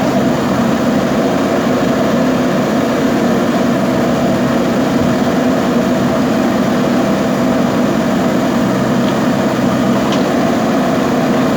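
JCB backhoe loader's diesel engine running steadily, a constant drone with no change in pitch or level.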